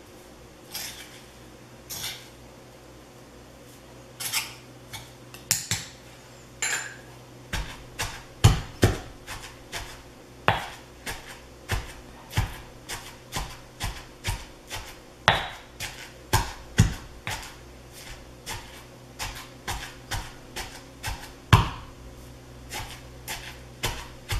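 Stone pestle pounding fried chilli and coconut sambol in a granite mortar. There are a few scattered knocks at first, then steady strokes about two a second from around seven seconds in, some much louder than others.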